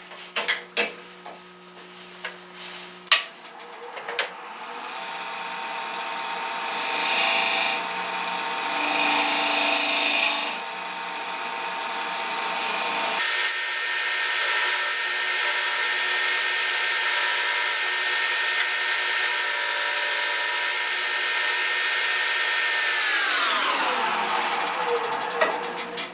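Wood lathe starting up about three seconds in and running with a steady whine of several tones, with a rasping noise of the work on the spinning wood; the tones shift about thirteen seconds in. Near the end the lathe is switched off and its whine glides down as it spins to a stop.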